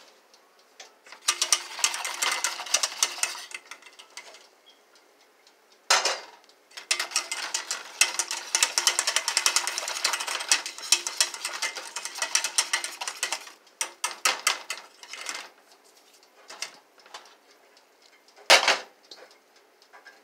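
Wire whisk beating in a small metal saucepan of milk-and-flour cream sauce: fast runs of clinking strokes in two long spells, with scattered lighter clinks between. Two louder single knocks, about six seconds in and near the end.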